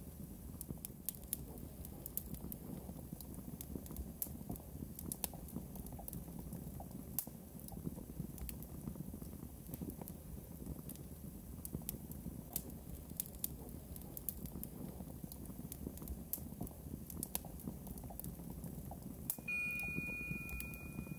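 Sparse live electronic music: irregular clicks and crackles scattered over a low, grainy noise bed. Near the end a steady high electronic tone comes in and holds.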